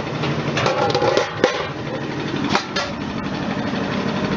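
Several sharp metal knocks and clanks as a perforated stainless steel basket of cut potato strips is handled against the machinery, over the steady running noise of the processing machines.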